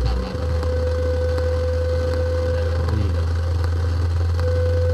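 Industrial noise drone: a loud, steady low hum with a thin held tone above it and faint scattered clicks. The deepest layer of the hum drops out about a third of a second in.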